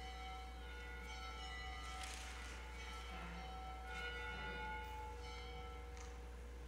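Church bell tolling, struck about every two seconds, each stroke ringing on and overlapping the next.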